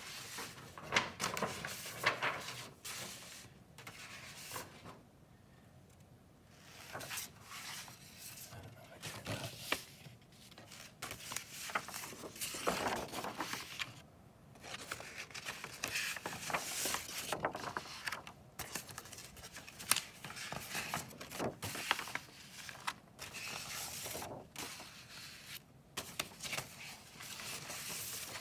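Sheets of drawing paper being handled and shuffled: irregular rustling and crinkling with scrapes as sheets slide over one another, broken by a few short pauses.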